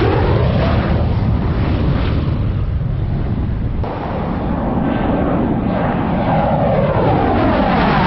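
Dassault Mirage F1's turbojet engine running loud as the jet passes low overhead on landing approach, with a sweeping whoosh over a deep rumble. Partway through the sound changes abruptly, then it builds again as another pass comes overhead near the end.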